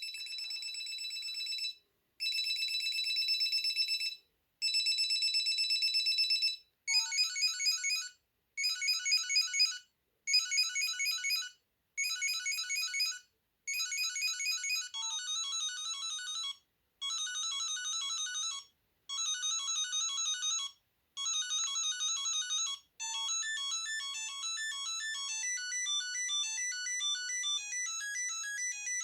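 Samsung SGH-A300 mobile phone playing its built-in ringtones one after another through its small speaker: first a steady ring sounded in three bursts, then short beeping tunes repeated with brief gaps, and in the last few seconds an unbroken melody. The tones are thin and high-pitched, with nothing in the bass.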